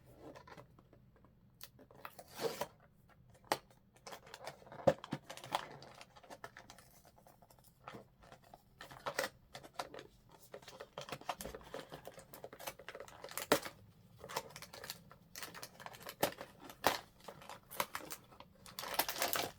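A cardboard blind box and its plastic inner bag being opened by hand: irregular short tearing, scraping and snapping of packaging, with a longer rustle of plastic near the end.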